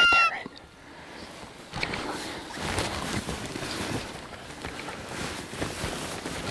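A loud nasal deer bleat from a hunter's hand call ends just after the start, its pitch dropping slightly. Then come rustling footsteps and brushing through undergrowth, with scattered small cracks and scuffs.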